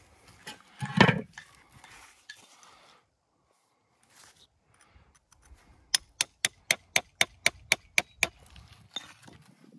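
A heavy stone set down with a knock about a second in, then a run of about eleven sharp, evenly spaced hammer taps on stone, about four a second.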